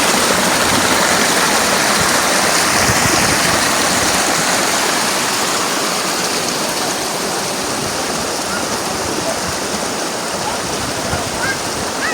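Rushing water of a mountain stream: a loud, steady rush that eases slightly in the second half.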